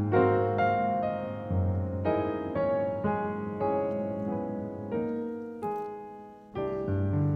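Background piano music, a gentle melody of struck notes that fades briefly and starts again about two-thirds of the way in.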